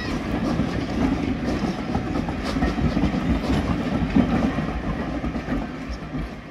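Train of old compartment-style passenger carriages rolling past close by, its wheels clacking over rail joints and points with a steady rumble. The sound fades away near the end.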